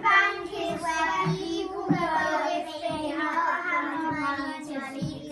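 Children singing a song, held sung notes running on without break.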